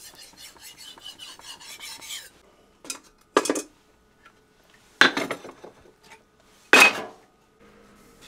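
A steel sashimi knife blade and a sharpening stone rubbing together in quick, even strokes, about five a second, for about two seconds. Then four sharp knocks and clatters of hard objects, the loudest near seven seconds in.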